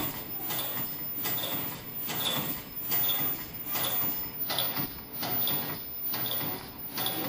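Automatic disposable face-mask making machine running, its mechanism clicking and clattering in an even cycle that repeats a little under once a second.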